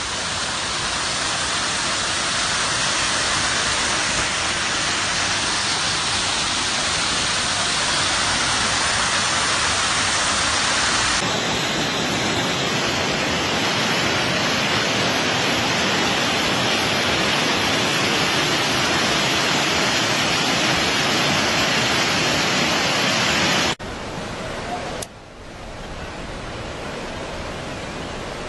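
Fast-flowing floodwater rushing, a loud, steady, even noise that drops abruptly to a quieter rush near the end.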